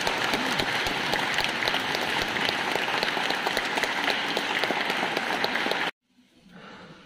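Audience applauding: dense, steady clapping that cuts off suddenly about six seconds in.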